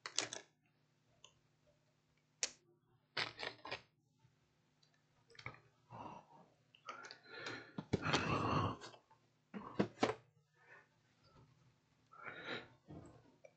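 Handling noise on a workbench: a bare laptop motherboard and a white card box being moved about by hand, with scattered light knocks and clicks and a longer rustling scrape about seven to nine seconds in.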